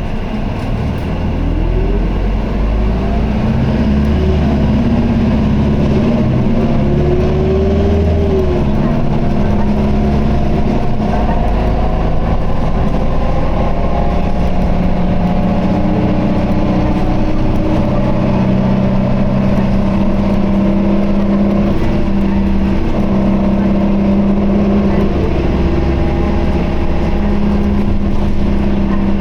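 Isuzu Erga city bus's diesel engine and drivetrain heard from inside the cabin, pulling away with the engine note rising for the first few seconds, then running steadily under load with a droning tone and a higher whine. The transmission is held in fourth gear in POWER mode, and the bus makes a slight abnormal noise.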